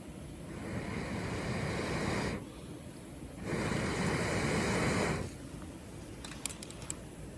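Two long rushes of air noise, each lasting a couple of seconds and cutting off sharply, then a few quick sharp crackling pops from a campfire.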